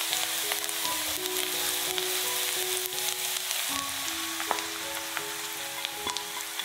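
Diced onion sizzling in hot oil in a nonstick frying pan, stirred with a silicone spatula, with small ticks and pops; beaten egg is poured into the pan about halfway through while the sizzling goes on. Soft background music of held notes plays underneath.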